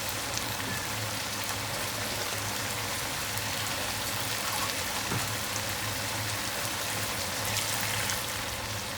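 Shrimp in a watery tomato sauce bubbling and sizzling steadily in a pan over high heat.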